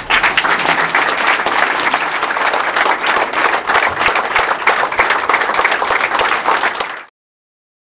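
A large crowd of people applauding, many hands clapping at once, until the sound cuts off suddenly about seven seconds in.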